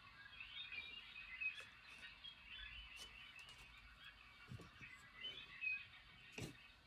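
Faint, scattered bird chirping and chattering, with a couple of soft knocks in the second half.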